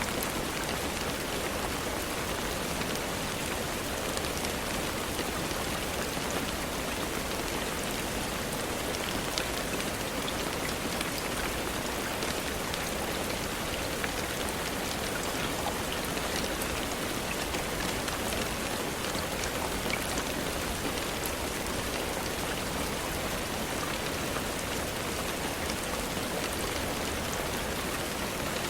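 Steady rain falling, with the fine ticks of individual drops hitting a surface.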